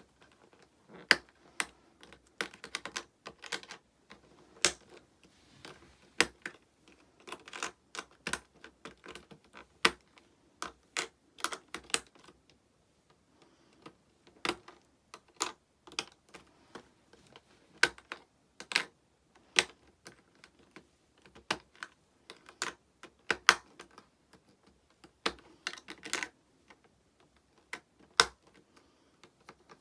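Irregular sharp clicks and taps of small hard plastic pieces being handled: Prism Stone toy stones and their trunk case being picked up, set down and opened, in uneven clusters with a short lull about halfway through.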